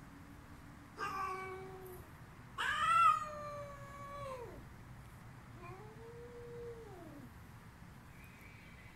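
Female cat yowling during mating as a tomcat holds her down: three drawn-out cries. The second is the loudest and longest and slides down in pitch at its end; the third is fainter and rises and falls.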